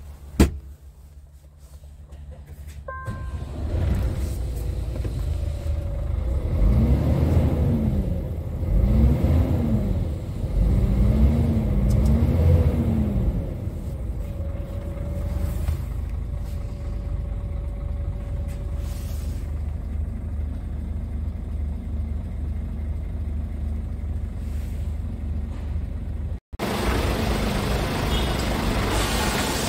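Scania R tractor unit's diesel engine starting up about three seconds in, revved up and down a few times, then idling steadily, heard from inside the cab. Near the end it idles on, heard outside beside the truck with more hiss.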